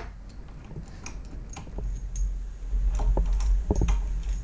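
Scattered light clicks and taps of small metal parts and hand tools being handled on a Hydro Gear hydraulic pump in a bench vise, over a low rumble that grows stronger in the second half.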